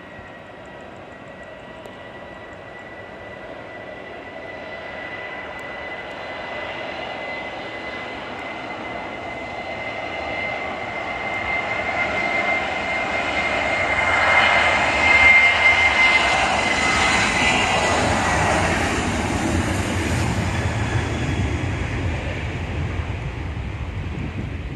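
Boeing 737 jet's twin turbofan engines running as the aircraft moves along the runway: a steady high whine over a rushing roar that grows louder as it nears. The sound is loudest about fifteen seconds in, turns to a deeper rumble as the jet passes, then eases off.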